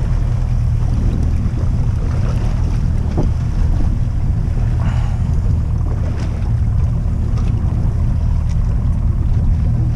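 Wind buffeting the microphone aboard a small boat at sea, a steady low rumble, with waves washing against the hull.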